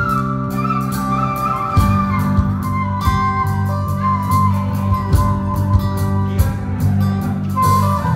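Suling gayo, a bamboo flute, playing a melody that slides between notes, accompanied by strummed acoustic guitar and electric bass guitar.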